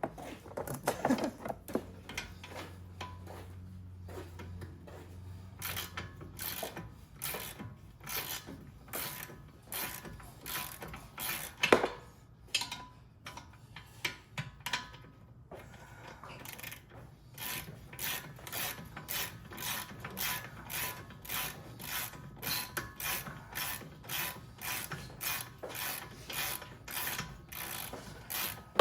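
Hand ratchet wrench clicking in steady back-and-forth strokes, about two a second, with one louder knock about twelve seconds in.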